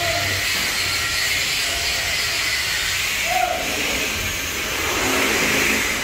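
Steady hissing noise with a low rumble underneath, the general background of an outdoor construction site; two brief faint tones show at the start and about three and a half seconds in.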